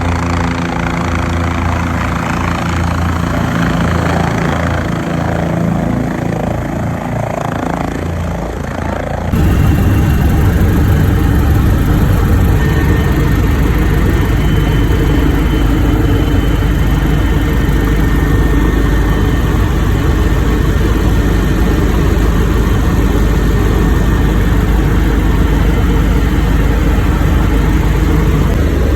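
Helicopter turbine and rotor noise. For about nine seconds it is a steady pitched drone with a throbbing low beat, then it cuts abruptly to a louder, dense steady roar with a faint high whine.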